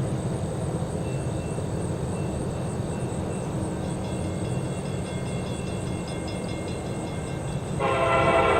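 Rebuilt CSX SD70MAC diesel-electric locomotives working at full throttle (notch 8), giving a steady low rumble. Near the end the locomotive air horn sounds again as a loud chord.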